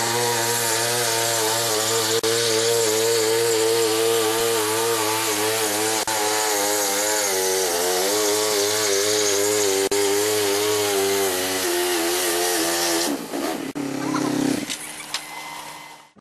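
Motorcycle engine held at high revs during a burnout, one steady note that wavers slightly in pitch. It breaks off about thirteen seconds in, and a short stretch of rougher, shifting sound follows before it fades out.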